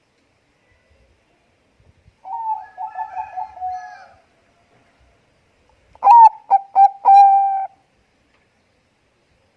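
Zebra dove (perkutut bangkok) song: two cooing phrases, a softer one about two seconds in and a louder one about six seconds in. Each is a quick run of stuttering notes that ends in a held low coo.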